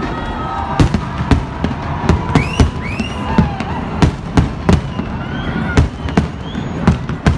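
Aerial fireworks display: shells bursting in a rapid, irregular string of bangs, several a second, with a few short rising whistles among them.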